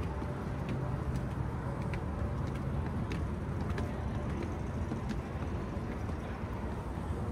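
Outdoor city ambience: a steady low rumble of road traffic, with scattered faint clicks through it.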